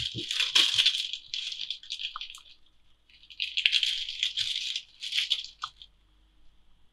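Thin plastic film crinkling as individually wrapped processed cheese slices are peeled open, in two bouts of a couple of seconds each.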